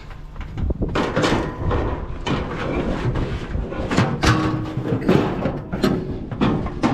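Metal barbecue grill clanking and scraping as it is dragged and heaved about, with repeated irregular knocks and a brief metallic ring.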